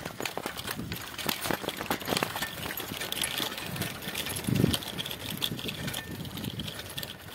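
Bicycle ridden over a rough dirt track: tyres crunching on grit and loose parts rattling, with a running string of clicks and knocks and a heavier thump about four and a half seconds in.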